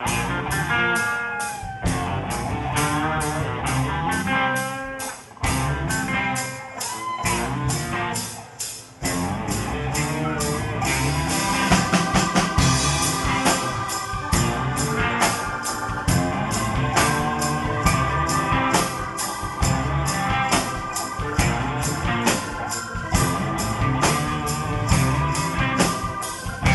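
Live rock band playing an instrumental intro: electric guitars and bass over a drum kit with a steady cymbal beat. For the first nine seconds or so the band plays in short phrases broken by brief drop-outs, then it plays on continuously, with a long held high note over it.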